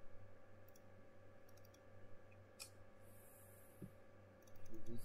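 Scattered computer mouse clicks, a few single clicks and then a quick cluster near the end, over a low steady hum.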